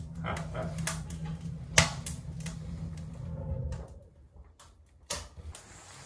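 Wood fire crackling in a small wood stove with its door open: irregular sharp pops, one louder pop about two seconds in, over a low steady hum. The crackling drops away about four seconds in.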